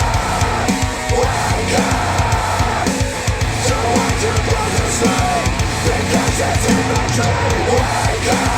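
Music with a steady drum beat, played through Wharfedale Denton 80th bookshelf speakers driven by a NAD C 388 integrated amplifier.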